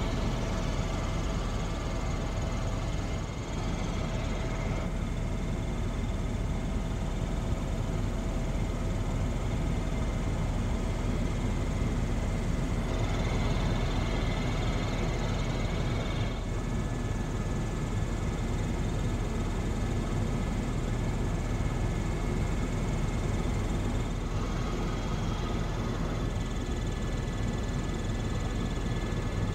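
Helicopter in flight heard from inside the cabin: a steady drone of rotor and engine with a few faint steady tones, its upper part shifting slightly now and then.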